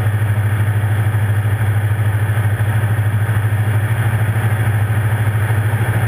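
Diamond DA40's single piston engine and propeller droning steadily in flight, heard inside the cockpit: a steady low drone with a fast, even pulse.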